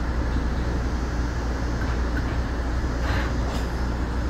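Straddle-beam monorail train running along its guideway, heard from inside the driver's cab: a steady low rumble of the rubber-tyred running gear and traction motors, with a brief hiss about three seconds in.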